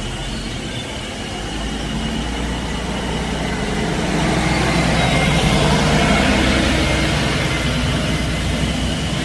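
Bus engine running with a steady low hum, growing louder towards the middle and easing off a little near the end.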